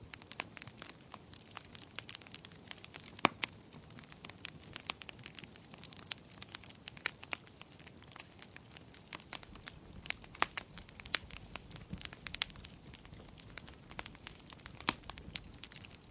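Fire in a fireplace crackling: irregular sharp pops and snaps over a soft hiss, a few pops clearly louder than the rest.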